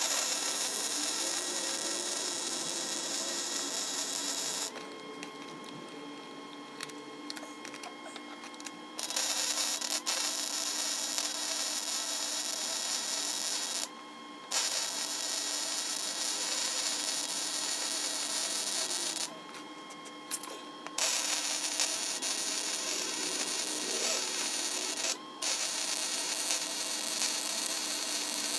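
Electric welder laying weld beads on a car's steel frame connectors, a steady crackling hiss in runs of several seconds, stopping and restarting about four times.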